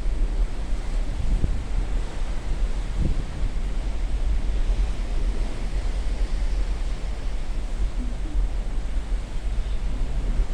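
Wind buffeting the microphone at sea, a steady low rumble with a hiss of wind and sea behind it, flickering in level without a break.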